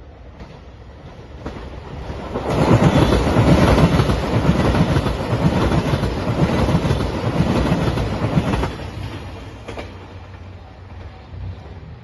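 JR Shikoku 2700 series diesel limited express train passing close by, its wheels clattering rhythmically over the rail joints. It swells loud about two and a half seconds in, stays loud for about six seconds, then fades away.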